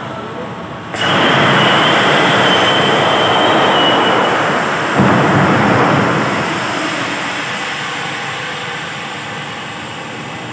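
Boeing 777 door escape slide inflating: a sudden loud rush of gas and air starts about a second in, with a high whistle over the first few seconds and a thump about five seconds in. The rush then slowly dies away as the slide fills.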